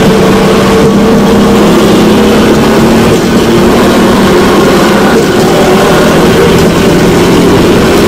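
Motorrodillo, a motorcycle-powered rail cart on ball-bearing wheels, running along railway track: the motorcycle engine and the bearing wheels rolling on the steel rails make one steady drone.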